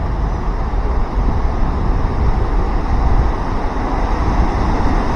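Ocean surf washing toward shore, a steady rushing noise, with wind rumbling across the microphone.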